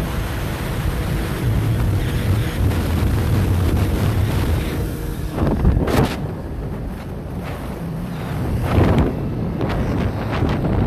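Wind buffeting the microphone of a phone carried on a moving motorcycle, over a steady low rumble of engine and road noise. Two stronger gusts come about six and nine seconds in.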